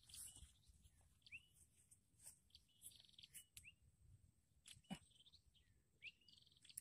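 Faint bird calls: short rising chirps and buzzy notes repeated every second or so, with a single sharp click about five seconds in.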